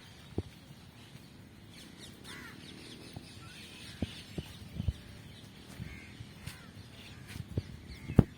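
Birds calling on and off over a steady outdoor background, with several short low thumps, the loudest near the end.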